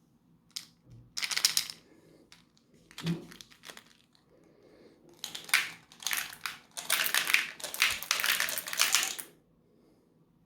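A meat grinder crushing and crunching something brittle: short crackling bursts, then a longer run of crunching that stops about nine seconds in.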